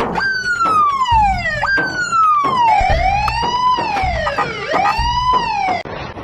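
Emergency vehicle siren sounding. Its pitch jumps up and then falls slowly, about twice. It then switches to a run of rising-and-falling sweeps and cuts off shortly before the end.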